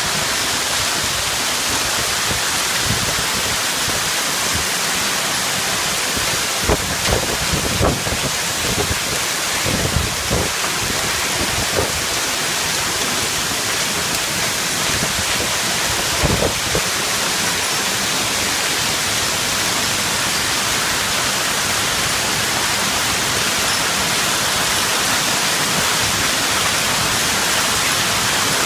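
Heavy hail coming down hard in a dense, steady hiss. A handful of short, low thumps break through between about six and seventeen seconds in.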